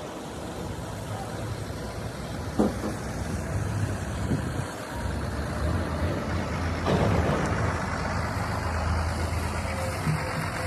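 Heavy truck engine running with a steady low rumble, with a sharp knock about two and a half seconds in and a brief burst of noise about seven seconds in.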